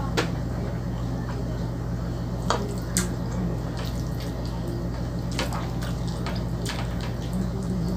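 Close-up wet chewing of creamy spaghetti, with a few sharp clicks of a metal fork against the pan as noodles are twirled up, over a steady low hum.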